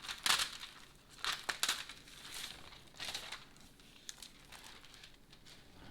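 Thermal stencil paper rustling and crinkling as it is handled after tearing off a fresh print, in several short bursts over the first three seconds, then quieter handling.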